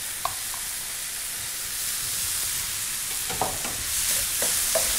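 Pre-cooked rice, diced pumpkin and gorgonzola sizzling steadily in a hot frying pan on a gas burner. There is a light tap just after the start, and from about three seconds in, scattered knocks and scrapes as the rice is stirred in the pan.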